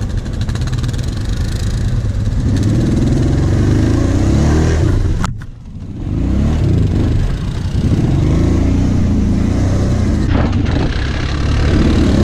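Kawasaki KVF 750 Brute Force quad's V-twin engine running under load, its pitch rising and falling with the throttle as it rides over sand mounds. About five seconds in there is a sharp click and the sound briefly drops away before the engine comes back.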